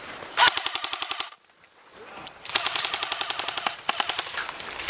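Airsoft electric rifle, a Galil replica, firing full-auto in several rapid bursts: a fast, even chatter of gearbox cycles and BB shots. There is a short break after the first burst, and longer bursts follow.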